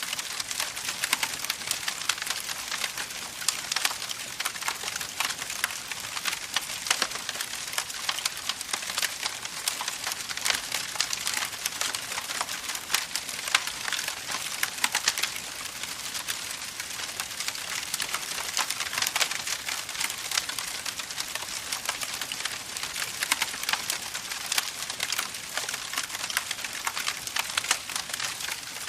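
Campfire with burning wood crackling and popping steadily, dense small snaps over a soft hiss.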